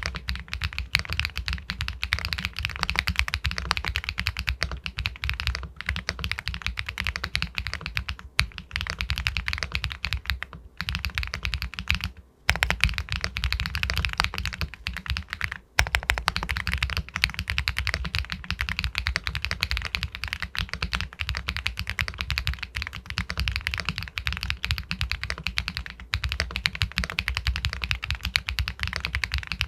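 Fast, continuous typing on an Epomaker Galaxy 80 Pro full-aluminium mechanical keyboard with White Jade linear switches, a dense run of keystrokes with a pebble-like clack. It pauses briefly twice, about twelve and sixteen seconds in.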